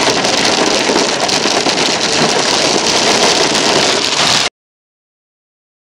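Hail and heavy rain pelting a car's roof and windshield, heard from inside the car as a loud, dense, steady clatter. It cuts off dead about four and a half seconds in, where the recording drops to silence.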